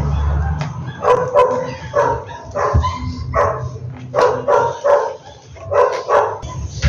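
Dog barking repeatedly, about a dozen short barks that often come in quick pairs.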